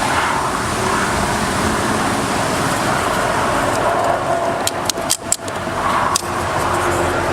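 Steady rushing background noise with a faint hum, broken by a few sharp clicks about five and six seconds in.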